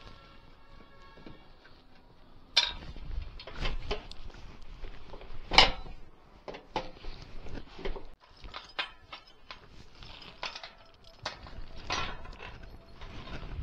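Irregular metallic knocks and clanks on metal roofing sheets as they are fixed in place, starting about two and a half seconds in, with the sharpest strikes near 2.5 and 5.5 seconds.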